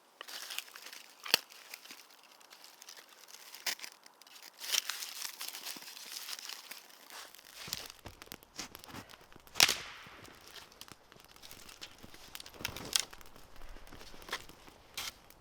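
Crinkling and rustling of synthetic fabric or camping gear being handled, with scattered sharp clicks and knocks. A low rumble joins about halfway through.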